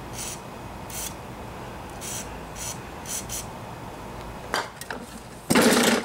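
Aerosol spray lubricant being squirted in about six short hisses into the spring hole of a lawnmower's recoil starter, to free the sticking spring that won't pull the rope back in. Near the end a knock, then a loud rasping as the starter rope is pulled out.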